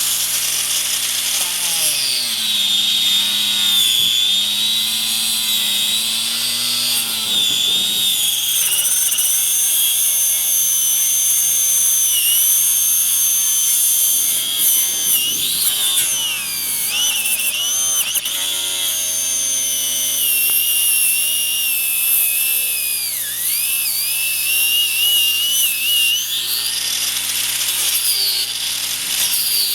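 Craftsman angle grinder with a cut-off wheel cutting into a rubber tire, its high whine starting about two seconds in and repeatedly dipping and recovering in pitch as the disc bogs down in the rubber.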